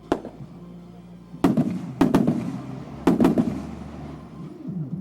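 Fireworks shells bursting overhead: one bang right at the start, then bangs about one and a half, two and three seconds in, some close pairs, each trailing off in crackle and echo that fades away.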